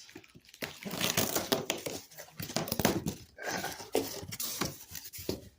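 Large cardboard shipping box being opened by hand: a run of irregular rustling, scraping and crinkling of cardboard and packing material.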